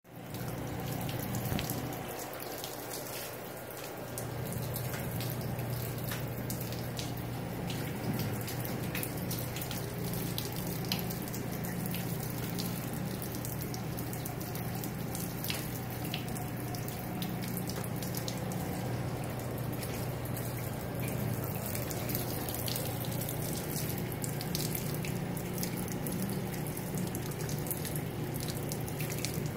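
Water streaming and trickling out from under the lid of an overflowing sewage ejector basin, with a steady low hum underneath that drops out for a couple of seconds near the start and then holds.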